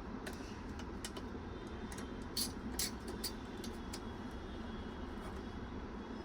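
Small clicks and taps of a screwdriver tightening the four mounting screws of a CPU cooler, over a steady background hum; two louder clicks come about two and a half seconds in.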